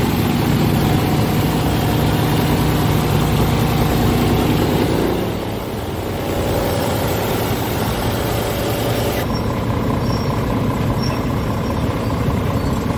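Scania R tractor unit's 13-litre straight-six diesel engine idling steadily. It is louder up to about five seconds in, then drops a little and runs on evenly.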